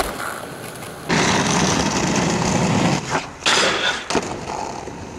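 Skateboard wheels rolling over rough asphalt, then a brief gap and a second burst of board noise as the board goes onto the skate bench, followed by a single sharp clack of the board near the end.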